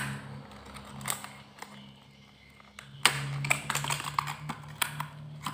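Clear plastic lure packaging being handled and opened: crinkling and clicking of the plastic packet and case, sparse at first, then a dense run of sharp crackles from about three seconds in.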